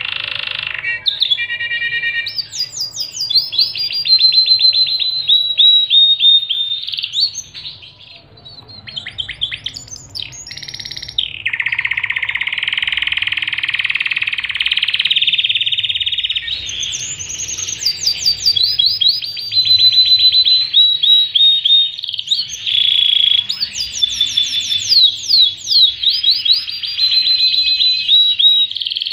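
Domestic canary singing a long, continuous song of rapid trills, buzzy rolls and quick down-slurred notes, with a short lull about eight seconds in.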